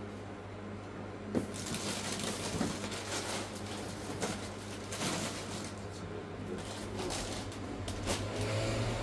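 Wrapped snack packets and cardboard boxes rustling, crinkling and knocking as they are handled and stacked, starting about a second and a half in with a sharp knock, over a steady low hum.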